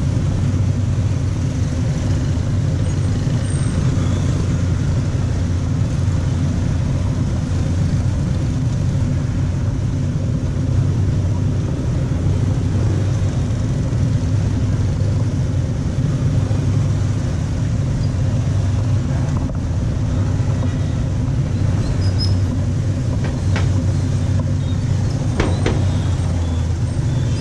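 Motorbike ride through city traffic: a steady engine hum with road and wind noise and the sound of surrounding motorbikes.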